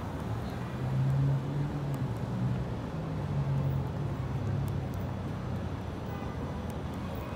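City street traffic: a road vehicle's engine running close by with a low, wavering note, loudest about a second in and fading out near the end, over a steady hiss of passing traffic.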